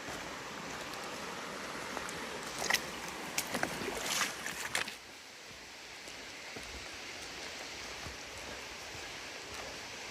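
A river rushing steadily. A few sharp clicks and scuffs come a few seconds in.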